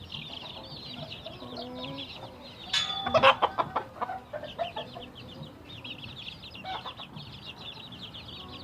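Chickens clucking over a constant fast high peeping of chicks. About three seconds in comes a sudden loud second or so of sharp clattering and cries.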